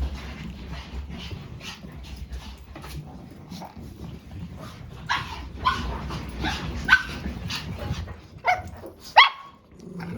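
Dog barking in short, high yaps, sparse at first and then quicker and louder in the second half.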